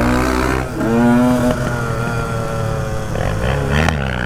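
A Suzuki DR350 four-stroke single revving hard as it pops a wheelie and pulls away. Its pitch climbs about a second in, sags, then climbs again near the end, over the steady running note of a Honda CR125 two-stroke dirt bike being ridden alongside.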